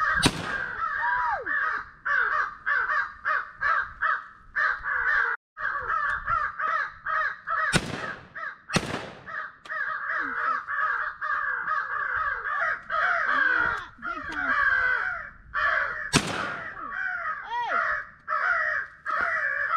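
Crows cawing without pause in a dense chorus, broken by four shotgun shots: one right at the start, two about a second apart some eight seconds in, and one about sixteen seconds in.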